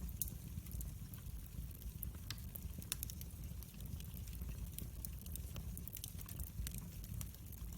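Wood fire burning in a fireplace: a low steady rumble of flames with irregular sharp crackles and pops, several a second.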